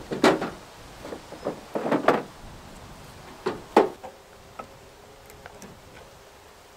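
Firewood logs being lifted and set down on a pickup's tailgate, knocking against each other: a series of wooden knocks and clunks, loudest near the start and just before four seconds, thinning to a few light taps and then faint rustling.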